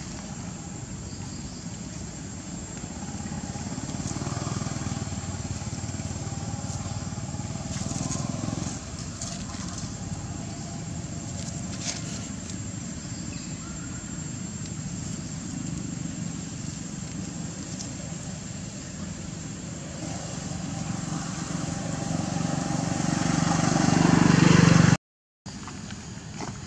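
Outdoor background noise: a steady low rumble with a thin, steady high-pitched tone above it, and a few faint clicks. Near the end the rumble swells louder over several seconds and then cuts off abruptly.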